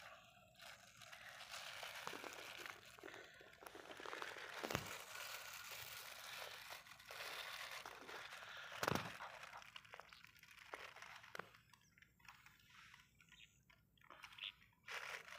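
Thin plastic bags crinkling and rustling as hands squeeze and tip them, with two sharper crackles of plastic near the middle.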